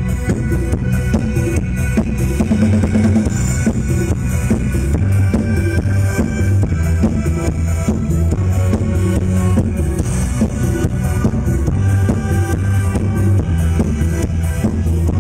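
Loud live band music over a concert PA system, with a drum kit (bass drum and snare) keeping a steady beat over a heavy bass line, heard through a phone's microphone in the crowd.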